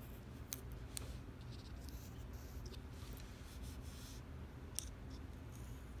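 Pencil scratching faintly across paper in short strokes, with a few light ticks of the pencil point, over a low steady room hum.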